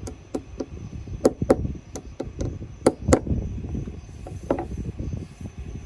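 Hammer knocking on wood: about ten sharp knocks in uneven clusters over the first three seconds, then a single knock about four and a half seconds in.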